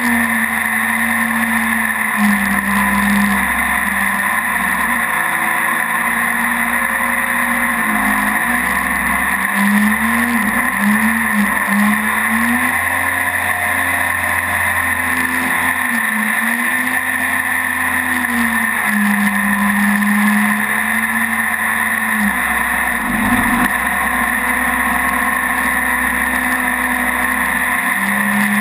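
Mini jet boat's engine running under way: a steady drone whose pitch rises and falls several times in the middle, then settles. A steady high hiss runs under it throughout.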